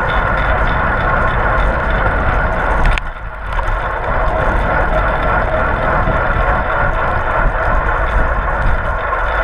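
Wind rushing over a GoPro's microphone on a racing bicycle at speed, mixed with steady tyre and drivetrain noise. The sound drops briefly about three seconds in, then picks up again.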